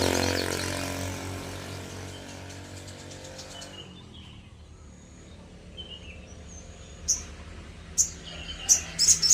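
A passing motor vehicle's engine fades away over the first few seconds. Then a sogon songbird gives faint high chirps, turning into sharp, high, short call notes from about seven seconds in.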